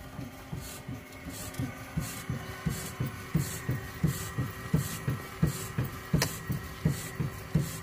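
A machine in the cockpit throbbing in an even rhythm, about three low pulses a second, over a faint steady high whine.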